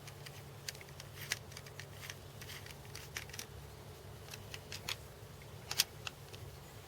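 Scattered light clicks and taps of small parts being handled, the sharpest a little before the end, over a steady low hum.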